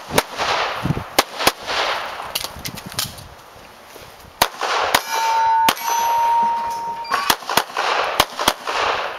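Handgun shots fired in quick singles and pairs, each a sharp crack. About five seconds in the shooting pauses while a steady metallic ring holds for about two seconds, then the shots resume in a fast string near the end.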